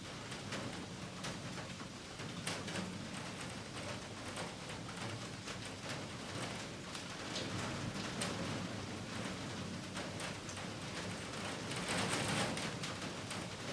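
Heavy rain falling steadily, with many separate close drop hits on top of the hiss, growing louder for a moment about twelve seconds in.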